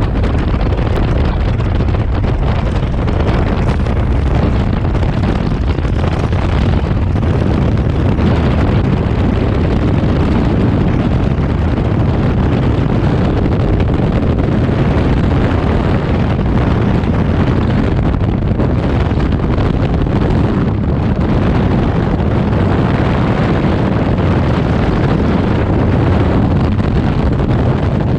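Skydiving freefall wind blasting over a camera's microphone: a loud, steady, deep rush of air buffeting the mic without a break.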